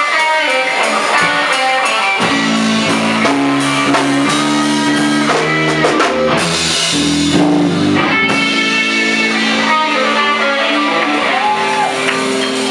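Live blues instrumental played on electric guitars, with changing lead notes and held notes. Near the end one note bends up and falls back.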